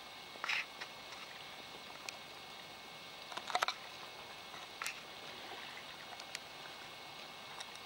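Faint open-air harbour ambience: a steady hiss with a few short, distant sounds about half a second, three and a half, and five seconds in.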